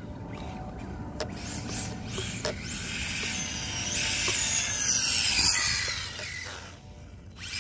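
HoBao Hyper VTE electric RC car's brushless motor whining at speed, its pitch rising and falling as it speeds up and slows. It is loudest a few seconds in and eases off near the end.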